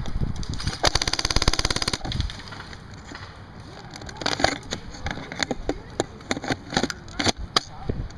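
Airsoft P90 firing a full-auto burst of about a second, a fast even rattle of shots. It is followed by a scatter of separate sharp cracks and clicks.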